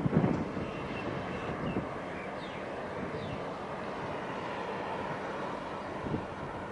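Wind buffeting the microphone in gusts, strongest just at the start and again near the end, over a steady low rumble of open-air harbour noise.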